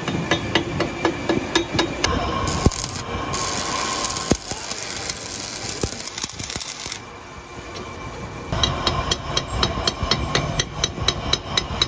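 A chipping hammer tapping rapidly, about four or five blows a second, knocking slag off a fresh weld where a yoke joins a steel PTO shaft tube. For a few seconds in the middle the tapping stops and an electric welding arc hisses and crackles; the tapping starts again near the end.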